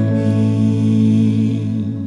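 Male vocal group singing a Christian song, holding one long sustained chord.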